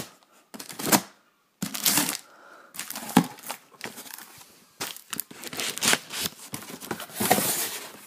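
A cardboard box being opened by hand: flaps and packing material rustling, crinkling and tearing in irregular bursts, with a couple of short pauses near the start.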